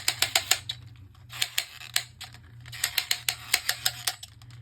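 Plastic ratchet of a Beyblade Burst Precision Strike string launcher clicking rapidly as it is wound up, in three or four short runs of quick clicks.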